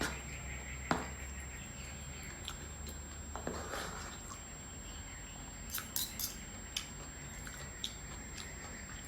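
Close-miked eating sounds: scattered sharp clicks of a spoon against a plate, with a short noisy rustle about three and a half seconds in.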